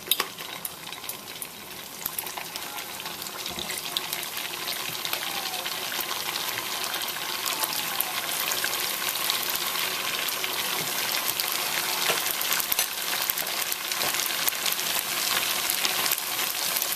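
Pulled-pork wontons deep-frying in hot vegetable oil: a dense sizzle of small crackling pops that grows louder over the first several seconds as more wontons go in, then holds steady.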